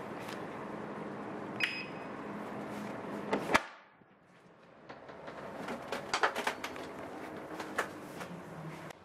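An electronic hotel door lock beeps once briefly, and a sharp latch click follows about two seconds later. The background hum then drops away suddenly, and a run of light clicks and knocks follows as the wooden cabin door and fittings are handled.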